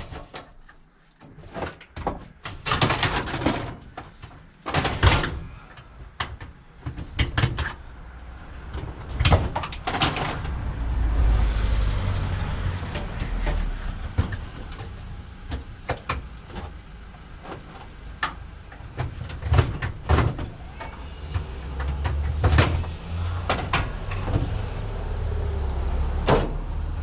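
Kerbside scrap being wrestled free and loaded: a string of irregular bangs and knocks with scraping and dragging between them, and a low rumble in places.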